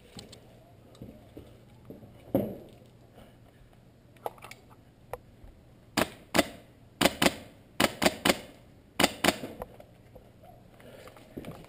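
Airsoft guns firing: about a dozen sharp cracks in quick clusters, starting about halfway through and lasting a few seconds. A single dull thump comes a couple of seconds in.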